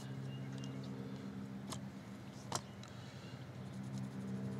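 A steady low machine hum with a single light click about two and a half seconds in.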